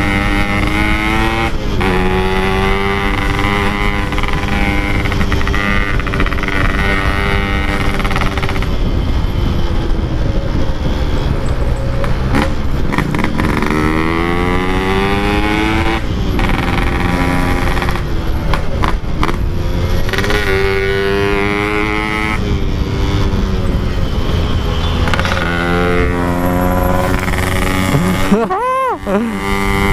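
Two-stroke Yamaha RX-King motorcycle with a Packing Power aftermarket exhaust, ridden on the road with the engine revving up and down through the gears. The pitch climbs and drops several times as the throttle opens and closes, with wind noise underneath.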